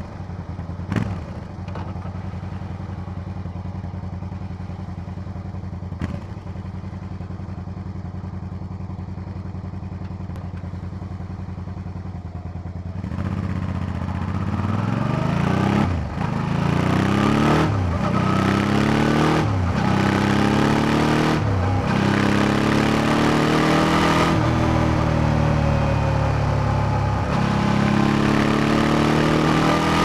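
Suzuki DL650 V-Strom's 645 cc V-twin through its stock silencer, running at low revs, with two sharp clicks in the first half. About halfway in it gets louder and accelerates hard. The revs climb and drop back several times as it shifts up through the gears.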